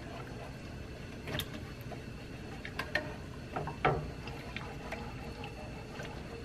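A whisk stirring thick red chile sauce in a pan, with light scattered clicks and taps of the whisk against the pan; the clearest knocks come about one and a half, three and four seconds in.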